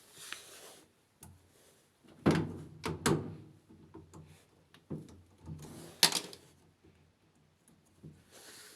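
Several sharp knocks and clunks of hard objects, the loudest about two seconds in, again a second later, and about six seconds in, with a faint low hum beneath some of them.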